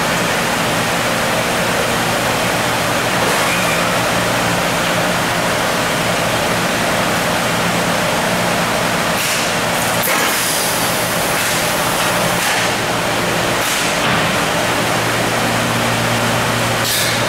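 Large thermoforming machine running, its cooling fans giving a steady loud rush over a low machine hum that grows stronger near the end. Short hisses of air break through several times, the longest about ten seconds in, as the mold table rises toward the clamped sheet.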